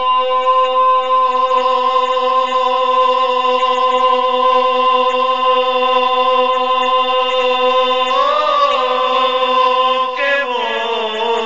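Sung music: a long note held steady for about ten seconds, with a voice bending around it about eight seconds in, then the melody stepping down near the end.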